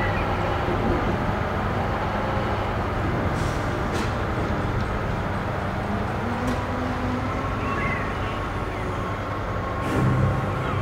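Steady low rumble of heavy road vehicles, with a few sharp clicks and a brief high squeal about eight seconds in.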